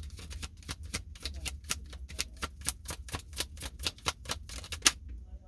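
A tarot deck being shuffled by hand: a rapid run of light card slaps and clicks, about five a second, ending with a sharper slap about five seconds in.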